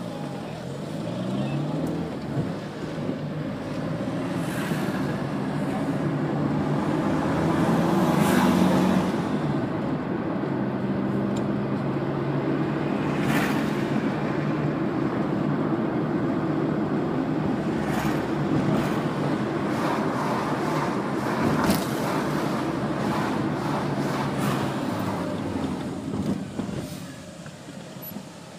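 Car engine and road noise heard from inside the car while driving: the engine climbs in revs at the start, runs steadily at cruising speed with a few short knocks, and eases off near the end as the car slows.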